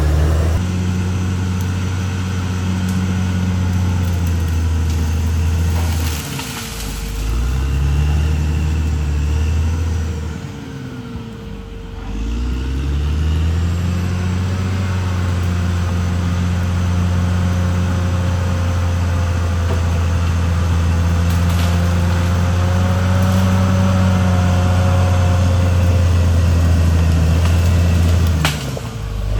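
CAT D6R XL bulldozer's diesel engine working hard, with a steady whine over it. The revs drop and climb back around 6 seconds in, again around 11 seconds, and once more near the end.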